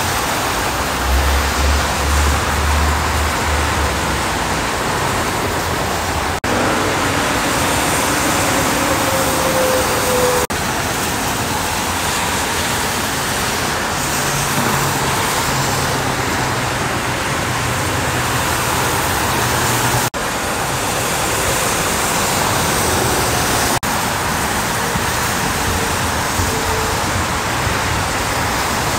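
Steady freeway traffic on rain-soaked pavement: a continuous hiss of tyres on the wet road, with the low drone of heavy trucks' engines rising at times. It breaks off briefly a few times.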